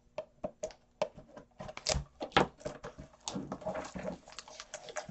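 A trading-card hobby box being opened and handled: a quick series of cardboard clicks, taps and rustles, with a couple of sharper snaps about two seconds in.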